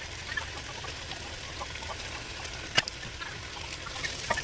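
Onions and bell peppers frying in olive oil in a pot, sizzling with small scattered crackles, and one sharp knock a little under three seconds in.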